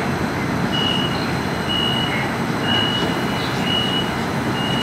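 Kinki Sharyo light-rail car starting to pull away from the platform, a steady rumble and hum, while a high electronic beep repeats about once a second, five times.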